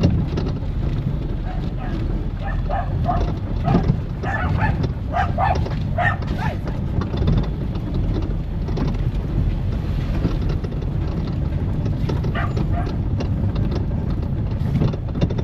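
Steady low road and engine rumble of a car being driven.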